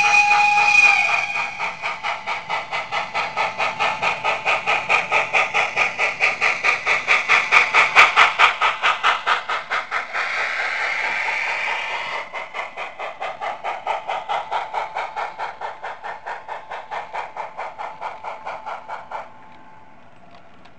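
Model steam locomotive's sound decoder playing a short whistle blast, then rapid, even steam chuffing that grows louder as the engine passes close by and fades as its wagons follow. The chuffing cuts off abruptly near the end.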